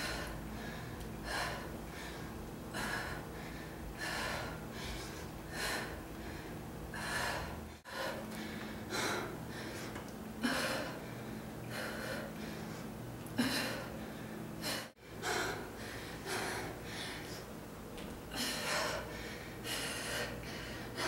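A woman breathing hard, with sharp, gasping exhales about once a second, from the exertion of hanging knee raises on dip bars during a high-intensity interval.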